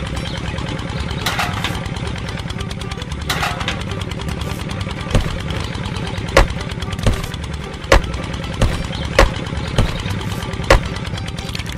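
A small engine idling steadily with a low, regular chug. In the second half about eight sharp knocks come less than a second apart, as plums are dropped one by one into the toy mill's plastic-bottle funnel.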